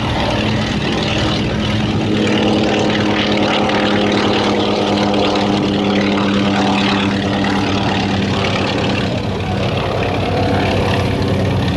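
Antonov An-2 biplane's nine-cylinder Shvetsov ASh-62 radial engine and propeller, running at climb power as the aircraft flies past low just after takeoff and climbs away: a steady, even drone with a strong low hum.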